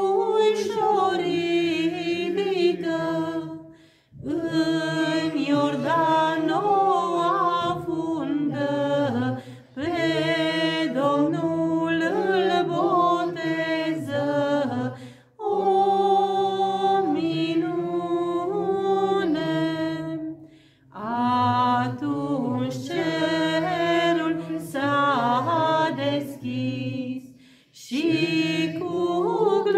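A woman singing a Romanian Epiphany (Bobotează) carol unaccompanied into a microphone, in chant-like phrases broken by short breath pauses.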